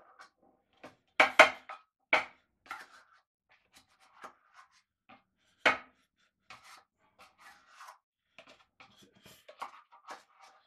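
Metal cupcake tin handled with a spatula: scraping and rubbing in the cups, broken by sharp knocks of utensil and tin, the loudest a quick pair about a second in, with another just before the halfway point.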